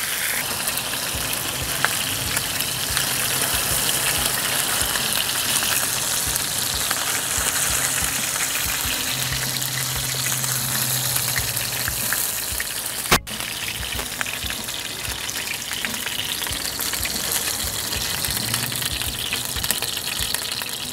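Mackerel frying in hot oil in a nonstick pan, with a steady loud sizzle and splattering. A single sharp click comes about two-thirds of the way through.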